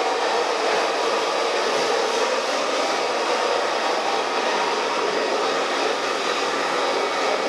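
Handheld hair dryer blowing steadily while blow-drying long hair.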